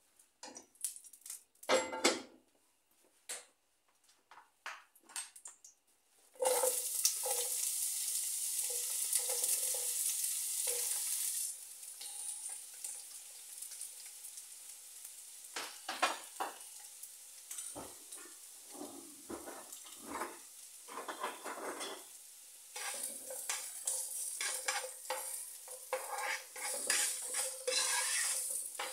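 A few light clicks and knocks of a utensil, then about six seconds in chopped onion goes into hot avocado oil in a skillet with a sudden loud sizzle. After about five seconds the sizzle settles to a quieter steady frying, with a utensil stirring and scraping in the pan.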